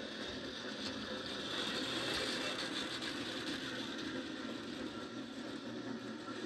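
Model train running along its track: a steady whir of the locomotive's small electric motor and the rumble of its wheels and wagons on the rails, loudest about two seconds in as it passes close by.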